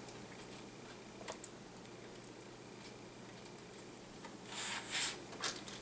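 Faint small plastic clicks and brief scraping from handling the tablet's internals as the ribbon-cable connector latches are snapped closed. A few scattered clicks come early, then a short cluster of scrapes and clicks near the end.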